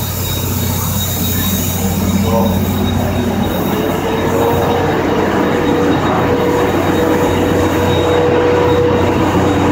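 Steam locomotive C57 180 and its train beside the platform, making a continuous steady hiss over a low hum. A steady mid-pitched whine comes in about halfway through.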